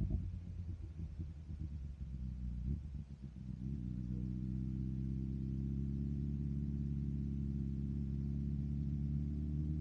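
BMW S1000RR inline-four engine through an M4 aftermarket exhaust. It runs choppy and uneven for the first three to four seconds, then settles into a steady, even note.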